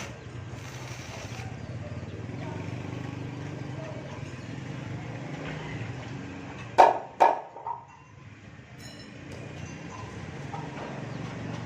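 Two loud metal clanks in quick succession about seven seconds in, each with a short ring, as iron bars are struck during cage building. A steady low hum runs underneath.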